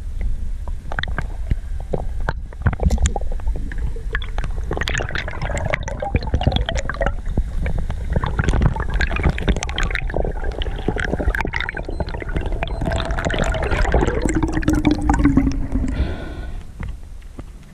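Muffled underwater noise through a camera's waterproof housing: gurgling, sloshing water under a low rumble, with many sharp clicks and knocks as a speared fish, the spear shaft and the speargun line are handled.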